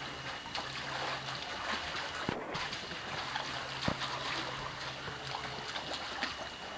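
Swimming-pool water splashing and sloshing steadily as a baby is moved through it, with a couple of short knocks.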